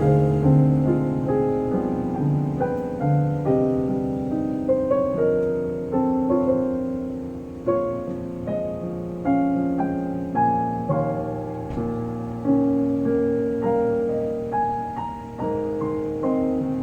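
Solo piano playing a gentle piece: a melody of single struck notes over flowing lower accompaniment, each note ringing and fading.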